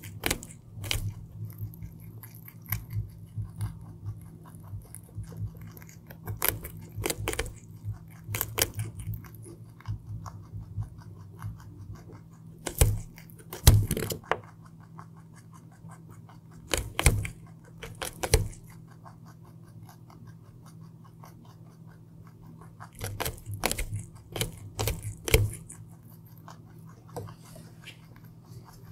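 Baby rabbit biting and chewing raw carrot close to the microphone: irregular crisp crunches and quick munching, with a few louder bites and a quieter stretch past the middle, over a faint low hum.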